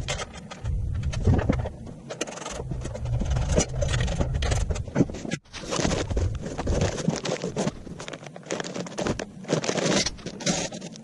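Sped-up workshop assembly noise: a fast, jumbled clatter of metal parts and tools scraping and clinking, broken into choppy chunks with a brief sudden gap about five seconds in.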